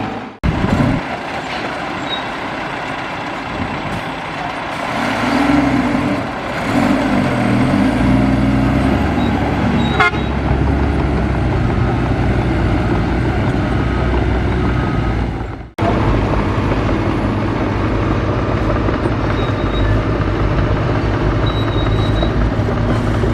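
Heavy diesel machinery running steadily, with the sound cutting out briefly twice.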